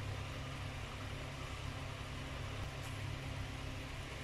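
A steady low machine hum under a faint even hiss, unchanging throughout.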